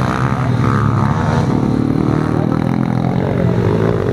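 Pit bike engines revving as the bikes race round the track, their pitch rising and falling with the throttle, one bike close by.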